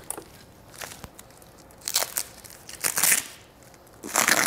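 Plastic bag crinkling in about five short bursts, roughly a second apart, as a plastic-wrapped part is pulled from polystyrene packing and handled.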